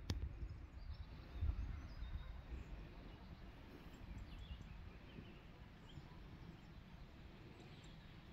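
Faint rural outdoor ambience: a low rumble, strongest in the first two seconds, with scattered faint, high bird chirps. A single sharp click at the very start.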